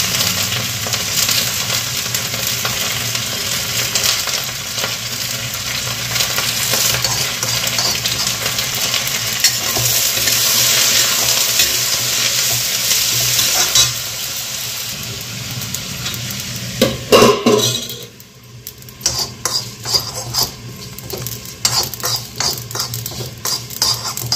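Sliced ivy gourd (kundru) frying in oil in a kadhai, a steady sizzle as it is stirred with a spatula. About 14 s in the sizzle drops. From about 17 s a metal spoon scrapes and clinks in a second kadhai as whole spices and dried red chillies are dry-roasted.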